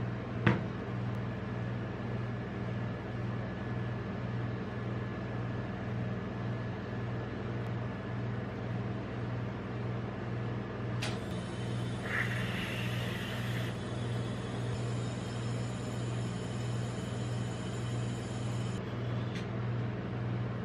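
Steady low hum of a rolled-ice-cream pan machine's refrigeration compressor, with a single sharp knock about half a second in.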